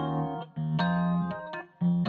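Background music: a run of plucked guitar notes with keyboard, each note ringing briefly before the next.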